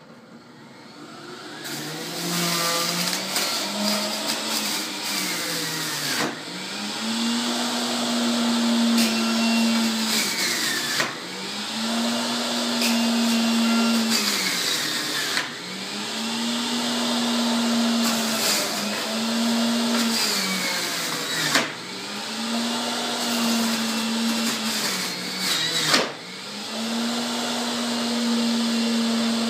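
Electric centrifugal juicer switched on about two seconds in and running with a steady whine. Its pitch sags each time produce is pushed down the feed chute and climbs back as the pieces are shredded, about six times over, with a sharp knock at several of the loadings.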